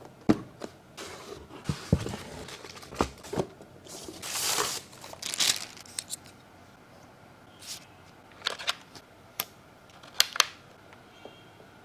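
Keyboard packaging being handled and opened: sharp knocks and clicks, and a longer tearing noise about four to five and a half seconds in, then a few more clicks.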